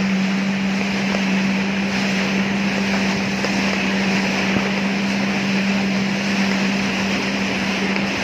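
Yamaha WaveRunner jet ski running at speed, its engine a steady drone held at one pitch, over the rush of wind and spraying water.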